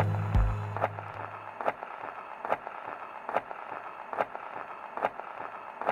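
Closing bars of background music: a low note dies away in the first second, leaving a faint click that repeats a little more than once a second until the track cuts off abruptly.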